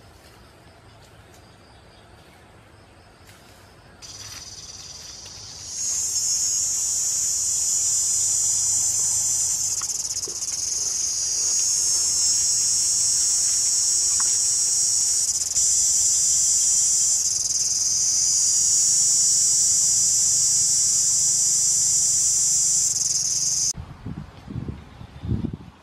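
Loud, steady, high-pitched insect chorus buzzing. It comes in faintly about four seconds in, swells a couple of seconds later and cuts off abruptly near the end, followed by a few soft low thumps.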